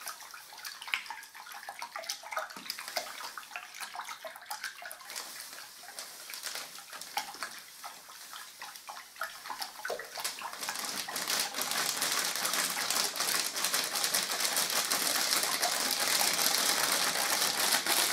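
A stick stirring water in a plastic bucket while wallpaper paste flakes are poured in, the water swishing around. The stirring gets louder and steadier about ten seconds in.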